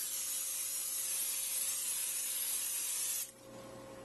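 Aerosol cooking spray hissing steadily from the can into a glass baking dish, cutting off sharply about three seconds in.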